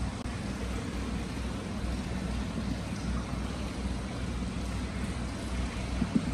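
Free-flowing hot spring water pouring and splashing through a stone basin into an indoor bath: a steady gushing with a low rumble under it.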